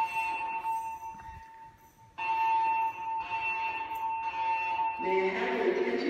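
Siemens MXL-V voice-evacuation fire alarm speakers sounding a steady electronic alert tone. The tone dies away about a second in, falls silent briefly, and sounds again for about three seconds. Near the end it gives way to the recorded voice evacuation message.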